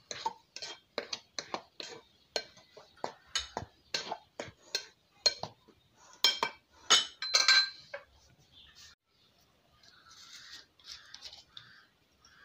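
Metal utensil clinking against a glass mixing bowl as flour and dry ingredients are stirred, about three taps a second, stopping about eight seconds in. Fainter soft mixing sounds follow.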